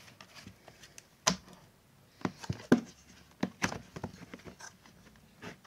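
Scattered light clicks and knocks of dishes and plastic food containers being handled on a table, about a dozen irregular taps.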